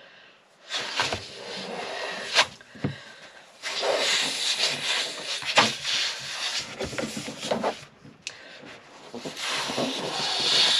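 A rubber glove being blown up by mouth: several long, breathy blows of air into it, with short pauses between them.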